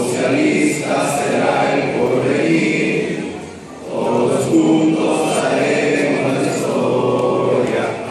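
A group of young men singing a hymn together in unison, with a brief break between phrases about halfway through.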